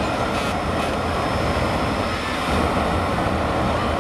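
Loud, steady engine roar from a motorsport vehicle, with no breaks or changes.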